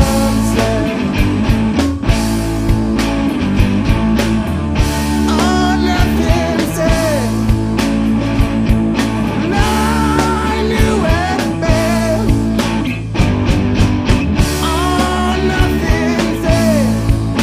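Rock band playing an instrumental passage, with electric guitar lines over bass and a steady drum beat.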